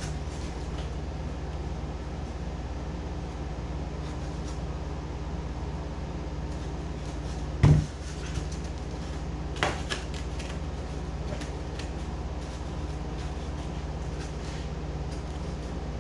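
Workshop handling noise: scrap foam pieces and tools being moved about, with one sharp knock about halfway through and a few lighter knocks and clicks shortly after, over a steady low hum.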